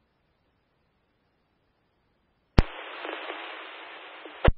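Police radio scanner: silence, then a sharp click as a transmission keys up, about two seconds of narrow-band radio static with no words, and a second click as it unkeys near the end.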